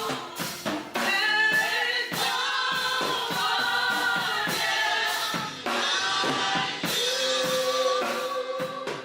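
Live gospel worship music: voices singing long held notes over a band with drums.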